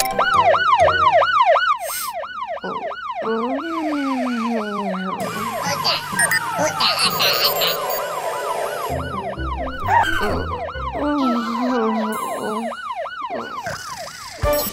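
Fire-engine siren sound effect going in a fast, repeating rise-and-fall of about three sweeps a second, with music and other cartoon effects underneath.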